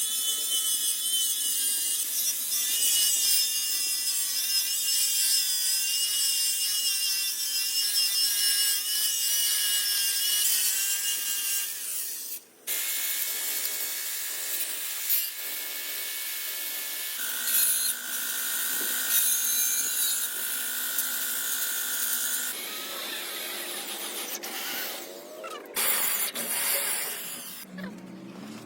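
A handheld power tool running against steel, a high steady whine with rasping noise. The sound changes abruptly about halfway through and twice more after that, as if several short clips were joined together.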